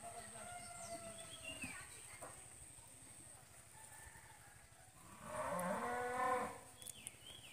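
A cow mooing once, about five seconds in, a single call lasting just over a second.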